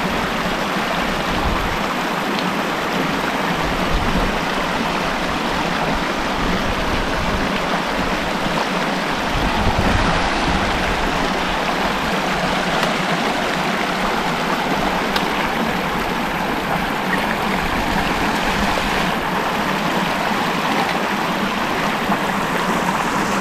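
Dunnfield Creek rushing steadily over rocks and small cascades.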